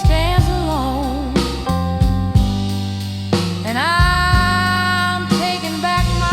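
Slow blues music: a lead line wavers and bends, then slides up about four seconds in to a long held note, over bass and drums.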